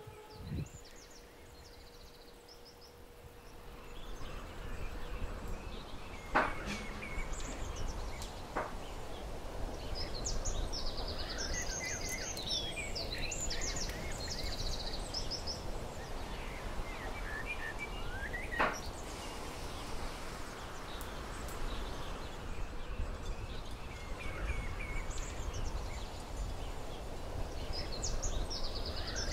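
Outdoor ambience: small birds chirping in short bouts over a steady low rumble, with three sharp knocks spread through it. A held flute note fades out in the first few seconds.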